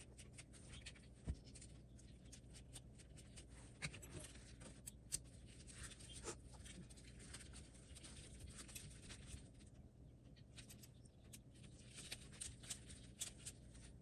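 Faint, scattered light clicks and scrapes of small metal hardware being handled, with a few sharper taps in the first six seconds.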